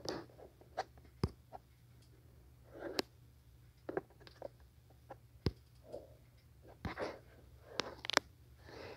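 Faint scattered clicks and taps with short soft rustles, typical of fingers tapping and handling a tablet, over a steady low hum.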